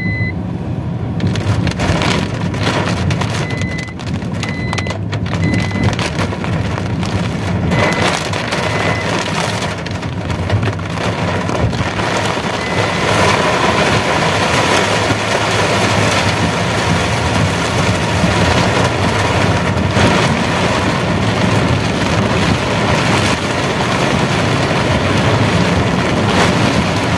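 Heavy rain on a moving car, heard from inside the cabin, over the steady hum of the engine and road noise. The rain grows louder about halfway through. A few short high beeps sound in the first half.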